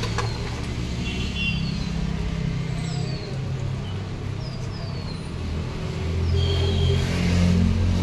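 A motor vehicle's engine running steadily, getting louder about six seconds in, with short high falling chirps repeating about once a second over it.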